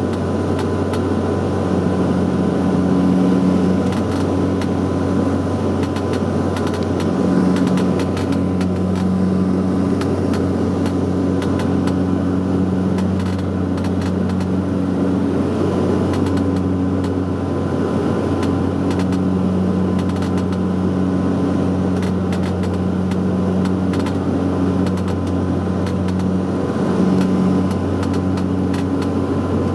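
Saab 340's twin General Electric CT7 turboprops and propellers droning steadily, heard inside the cabin. It is a low hum with higher tones that swell and fade every few seconds.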